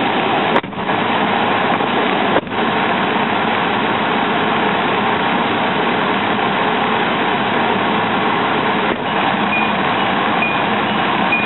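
Steady loud rushing noise, with short dips about half a second, two and a half and nine seconds in.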